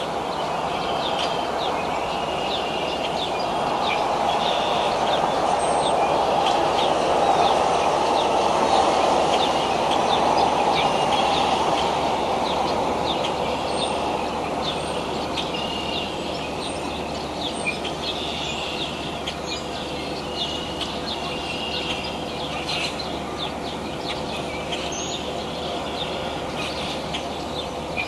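Outdoor ambience: a steady broad rumble that swells for several seconds and then eases, with small birds chirping and trilling repeatedly over it.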